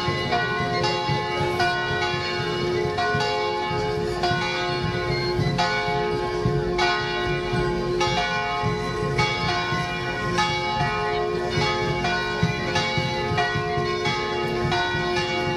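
Music for a folk dance: a bell-like ringing melody that moves in even steps about twice a second over a held lower note, with a rough low beat underneath.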